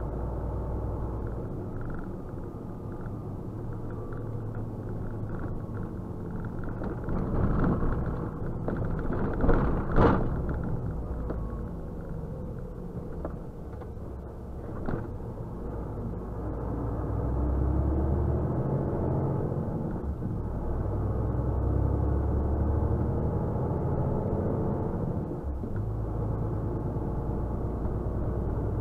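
Truck engine and road noise rumbling steadily from inside the cab. A short cluster of knocks peaks about ten seconds in, and partway through the engine note rises and grows louder as the truck pulls on.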